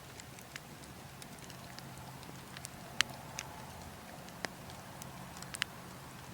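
Wood logs burning, crackling with sharp irregular pops, the loudest about three seconds in, over a steady low rumble of wind.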